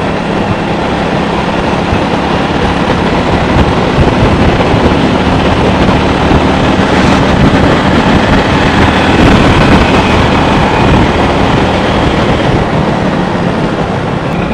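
Motorcycle riding at steady road speed: a steady engine drone under a loud, even rush of wind and road noise.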